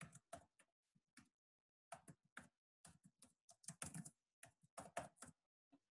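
Faint computer keyboard typing: a few keystrokes at the start, a pause of about a second and a half, then quick clusters of keystrokes.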